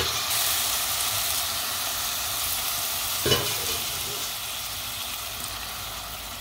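Toasted risotto rice and chopped spinach sizzling in the pan as hot spinach cooking water hits them, the sizzle slowly dying down. A single knock comes about three seconds in.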